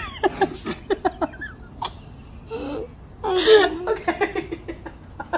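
Laughing in quick short bursts, with a louder drawn-out vocal sound just past halfway.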